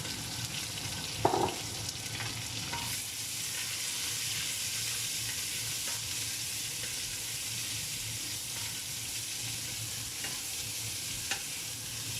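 Sliced onions sizzling steadily in hot oil with whole spices as they are stirred in the pan. A brief loud clatter about a second in, with a few light clicks near the end.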